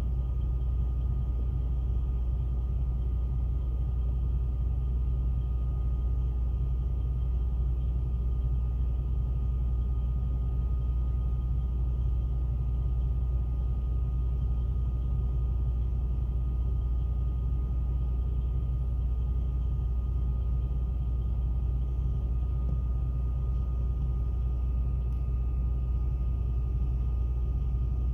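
Steady low rumble of an idling truck engine, unchanging throughout, with a faint steady high whine over it.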